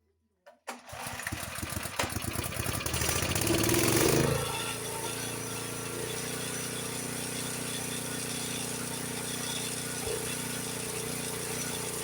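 Honda HS724 snowblower's single-cylinder engine starting up and rising in speed over about three seconds, then running steadily with the choke partly closed, which the owner says makes it run rough.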